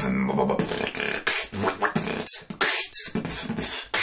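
Beatboxer making a mouth-made 'wob wob' dubstep-style wobble bass: a held low buzzing tone, then a run of uneven breathy wobbling pulses.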